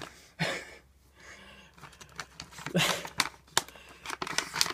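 Plastic candy bag being handled: short rustles and crinkles with scattered small clicks, and a quicker run of ticks near the end.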